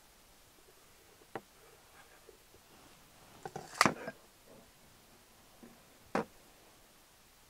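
A few scattered sharp clicks and knocks from a small hand tool being handled and set down at a wooden pastry board. The loudest is a short cluster of clicks about four seconds in, with single knocks before and after it.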